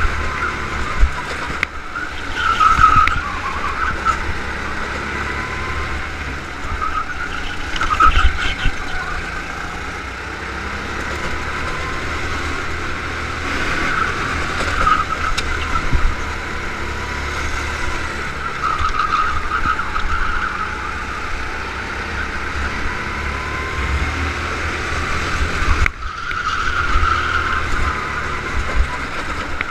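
Go-kart engine running at racing speed, heard onboard, its revs rising and falling through the corners. Several times it is joined by brief swells of tyre squeal as the kart slides through a corner.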